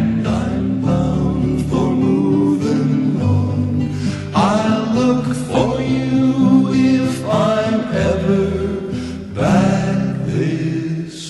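Folk song: voices singing in harmony over acoustic guitar.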